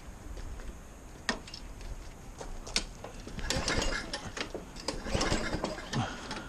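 Hand tools working on a push mower: a couple of sharp metal clicks, then a busy run of clicking and rattling from about halfway through, like a ratchet being worked.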